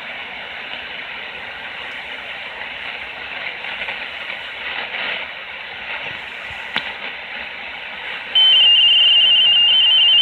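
Steady hiss, then about eight seconds in a loud, high electronic tone starts suddenly, flipping rapidly back and forth between two close pitches in a warbling pattern. It sounds like a data transmission to the person who recorded it.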